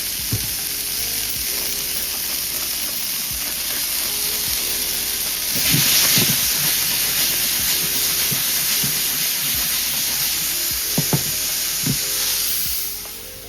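Tilapia frying in a hot pan: a dense sizzle that grows louder about halfway through, with a few soft knocks. The sizzle fades out near the end.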